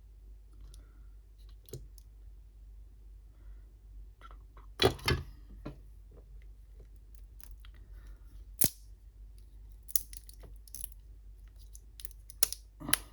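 Irregular sharp clicks and light knocks as small battery cells and their metal solder tags are handled and bent at a bench. The loudest knocks come about five seconds in and again near the end.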